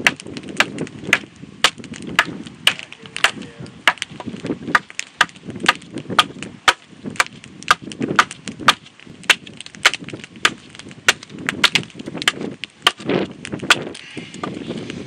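Large bushcraft knife hacking at the edge of a split-log wooden board, a steady run of sharp chopping strikes, two or three a second, as the board's width is trimmed even.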